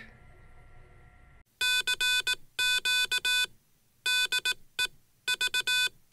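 Morse code sent as a buzzy electronic beep, keyed in short and long pulses, starting about a second and a half in after a faint hum. It plays over a call-sign title card and likely spells out the station's call sign.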